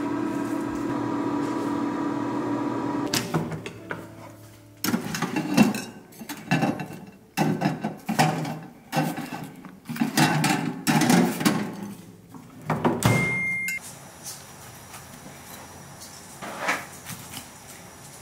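Countertop air fryer oven running with a steady hum that stops about three seconds in. Then a run of clinks and clatters as metal tongs lift fried fish cakes off the oven's wire rack onto a ceramic plate, with a brief high beep near the end.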